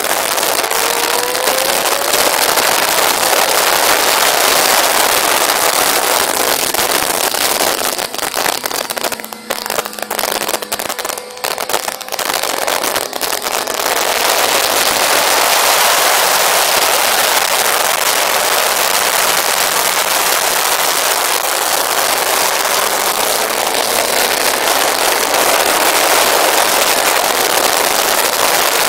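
Heavy wind noise rushing over the microphone of a Yamaha FZS600 at track speed, with the bike's inline-four engine faint underneath, rising in pitch as it accelerates about a second in. About eight seconds in, the wind noise drops and turns choppy for several seconds, then comes back at full strength.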